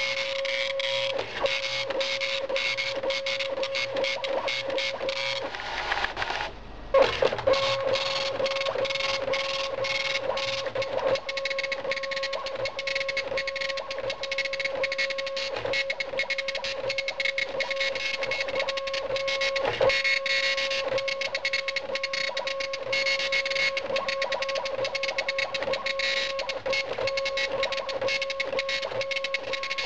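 Dot matrix printer printing on tractor-feed paper: the pin print head rattles out rapid dense strikes with a steady buzzing pitch as it sweeps the lines. The sound breaks off briefly about six seconds in, then carries on.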